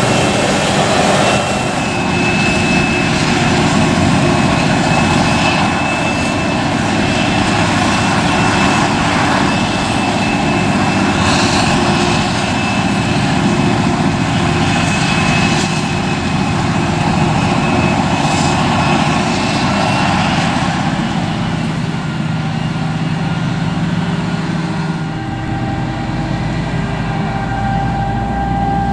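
Krone Big X 700 self-propelled forage harvester chopping maize: a loud, steady din of engine and chopping gear, with a thin high whine held over the first two-thirds. Near the end the sound shifts to a lower, steadier hum.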